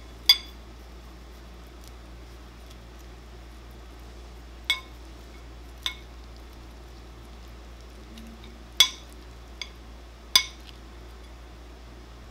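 Metal butter knife and spoon clinking against a plate while separating the top fillet of a grilled ribbon fish from its bones: about six sharp, briefly ringing clinks spaced irregularly, with the loudest near the start and about nine seconds in.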